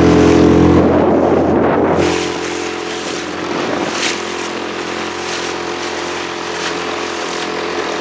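Motorboat engine running at speed, easing off about two seconds in and then running steadily at lower throttle, with wind and choppy water hissing over it.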